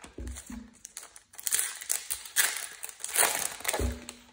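Foil wrapper of a trading-card pack crinkling and crackling as it is handled and torn open, loudest in the middle, with a dull knock against the table near the end.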